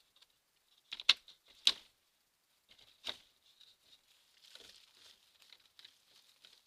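Badger digging and scrabbling under a wooden fence: crackly scratching and rustling of soil and dry leaves, with a few sharp cracks in the first three seconds.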